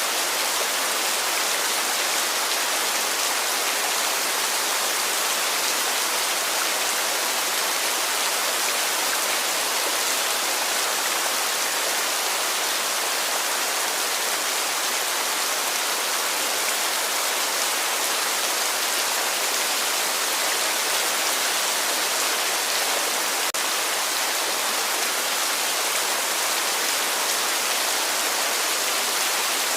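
Heavy rain falling: a steady, even hiss that holds without a break.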